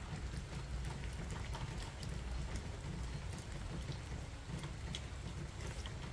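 Steady hiss of light rain falling on gravel, over a low rumble, with a few faint ticks.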